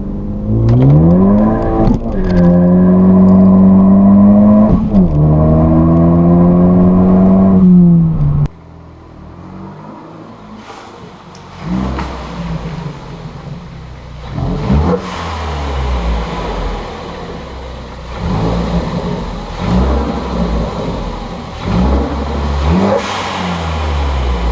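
Turbocharged Ford Focus ST engine accelerating hard through the gears: the pitch climbs, drops at each of two upshifts, and climbs again, then cuts off abruptly about eight seconds in. After that, quieter driving noise with several shorter revs.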